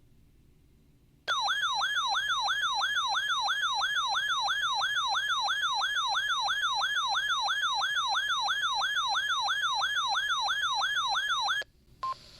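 Weather radio receiver's alert alarm sounding for a severe thunderstorm warning: a loud electronic warbling siren, sweeping up and down about three times a second. It starts suddenly about a second in and cuts off abruptly near the end.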